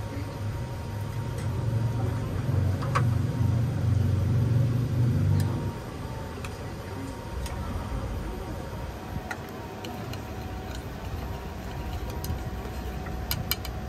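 Light clinks of a ceramic spoon against porcelain sauce bowls as dipping sauce is spooned and mixed, over a low rumble that drops away about five and a half seconds in.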